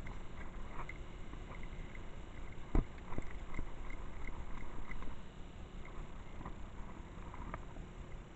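Handling noise of a spinning rod and reel against a chest-mounted microphone as a lure is cast and reeled in: low rubbing with scattered small clicks, and one sharp knock about three seconds in.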